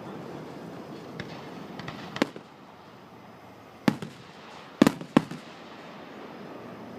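Fireworks bursting overhead: a run of sharp bangs, a faint one about a second in, then louder ones near two and four seconds and a close pair near five seconds, over a steady background hum.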